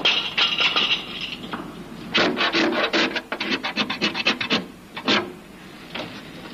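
Rasping, scraping strokes on car-body sheet metal: a scrape in the first second and a half, then a quick run of about eight strokes a second, and one last stroke about five seconds in.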